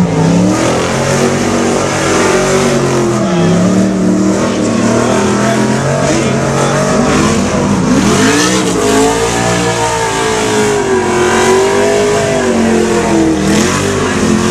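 Off-road car engine revving hard as the car drifts and spins on dirt, its pitch swinging up and down over and over.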